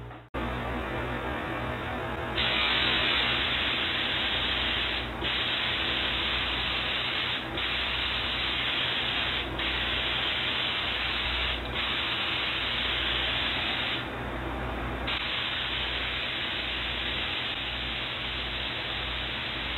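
Gravity-feed paint spray gun hissing as it sprays paint onto a car's body panel. It goes in long passes of a few seconds each, with short breaks where the trigger is let off. A steady low hum and background hiss run under it.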